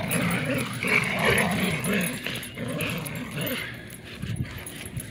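Two dogs play-growling while tugging on a rope leash between them, a rough, continuous growl that rises and falls, louder in the first couple of seconds and easing off near the end.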